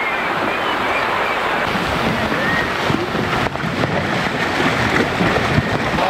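Steady rushing of wind over the microphone and water, as on a boat at sea, with faint voices in the background toward the end.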